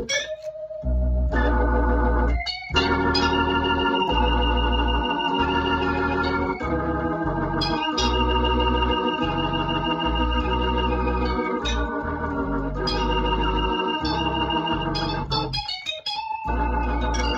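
Hammond B2 organ played through a rebuilt Leslie 122 rotary speaker, its treble horn spinning: sustained chords over a low bass line, changing every second or two, with a short click at the start of the chords.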